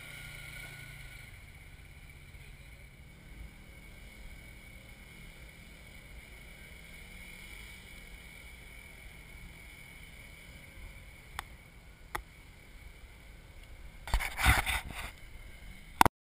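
Polaris RZR XP 900 side-by-side's parallel-twin engine running faintly, fading away within the first second or two and leaving a faint steady outdoor hum. Two sharp clicks come around eleven and twelve seconds in, then a short, loud clatter of knocks near the end and a final click.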